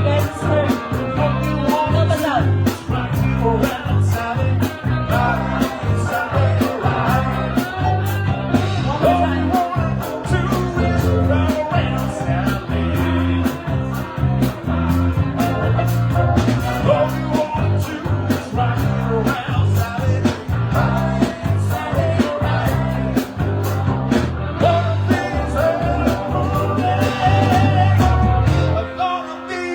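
Live band playing a song, with a steady bass line, drums, and a vocal or guitar melody. The playing stops suddenly near the end.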